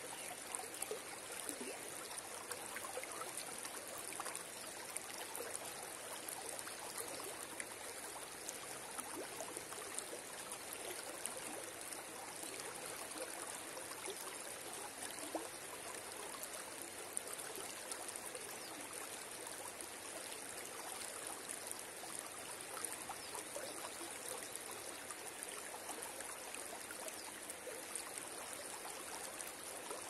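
River water flowing steadily, a continuous rushing with many small splashes and trickles.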